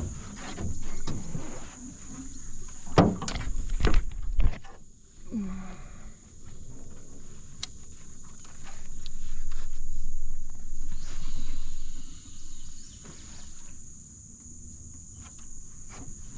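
Crickets trilling as a steady high-pitched chorus, with scattered knocks, clicks and handling noises over it, the loudest knocks about three to four seconds in.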